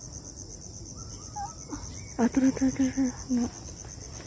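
Insects trilling steadily in a high, fast, even pulse. A little past two seconds in, a low call of about five short, even hoots stands out above it.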